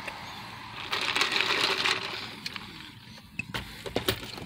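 Handling noise: a soft rustle for about a second, then several light clicks and knocks near the end.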